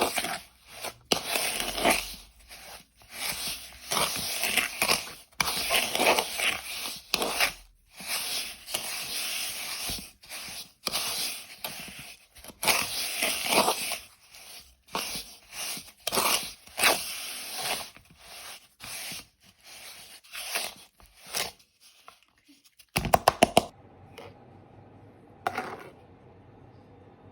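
Mixing in a bowl by hand: a utensil scrapes and beats against the bowl in irregular strokes, then a quick run of sharp knocks about 23 seconds in.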